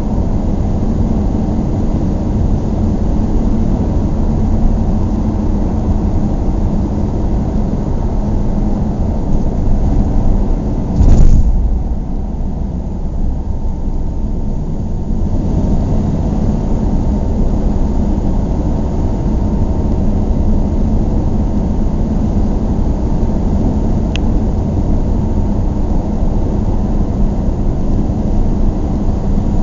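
Cabin noise of a closed car cruising on the highway: a steady low rumble of road and engine with a hiss of tyres and wind. About a third of the way in comes a brief loud thump, after which the hiss drops for a few seconds, and later a single short click.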